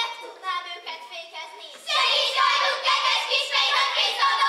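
Children's voices on stage: a few short separate calls, then from about two seconds in a group of children voicing together, loud and overlapping.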